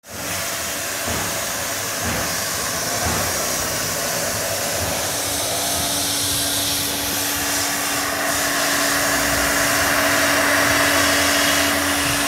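Hot-air gun for plastic welding blowing steadily, with a low steady hum joining about halfway through.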